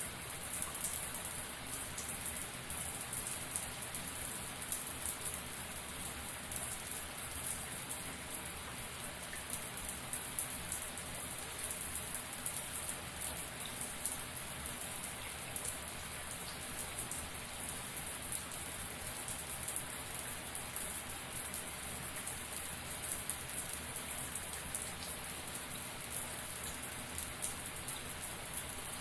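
Shower water spraying steadily, an even hiss with a fine, dense patter of drops striking.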